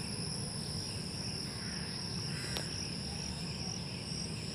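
Crickets singing in a steady, unbroken high-pitched chorus over a low background rumble, with one faint click about halfway through.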